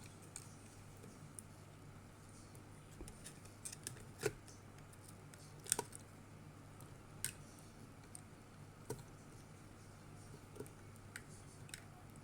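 Irregular small clicks and taps of hard plastic parts being handled as the head of a Cozmars v2 robot is worked off, a dozen or so scattered through, the sharpest about four and six seconds in.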